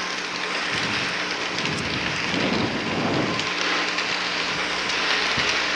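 Model electric train running along its track: a steady rattling whir of wheels and motor with a faint hum, swelling louder for about a second near the middle as it passes close by.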